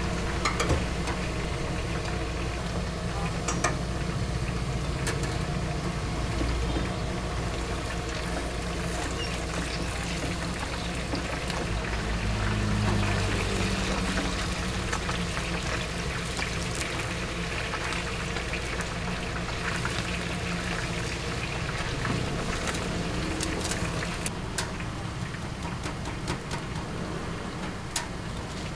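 Hot oil bubbling and sizzling in a wok as food deep-fries, over a steady low hum, with metal tongs clicking sharply against the steel strainer and rack a few times.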